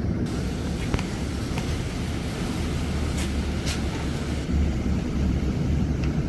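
Cabin sound of a Nova Bus LFS hybrid city bus under way: a steady low rumble from the drivetrain and road, with a few brief sharp rattles from the cabin.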